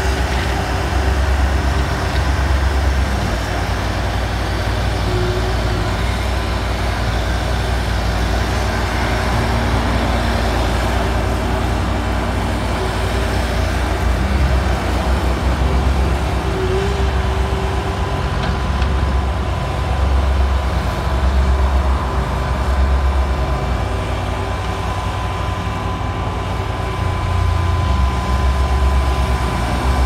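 Skid-steer loader's diesel engine running under load, rising and falling in loudness as the machine drives back and forth and works its loader arms and bucket.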